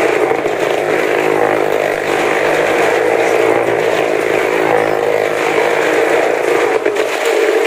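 Small car's engine running hard and steady as it circles the wall of a well-of-death cylinder.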